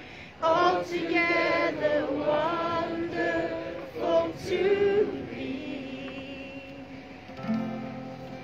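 A woman singing unaccompanied, a slow melody with long held notes that fades out about two-thirds of the way through; near the end a chord is strummed on a steel-string acoustic guitar and rings.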